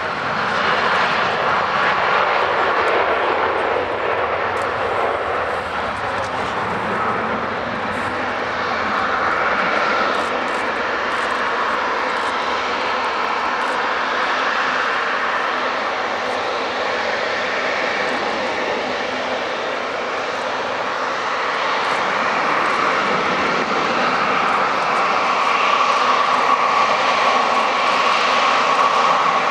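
Airbus A350-900's Rolls-Royce Trent XWB turbofans running at low taxi thrust: a steady jet whine over a rushing hum. It grows slightly louder near the end as the airliner turns to face the listener.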